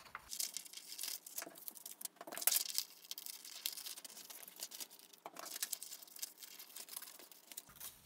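Scissors snipping through a sheet of paper in a run of irregular short cuts, with the paper rustling as it is turned.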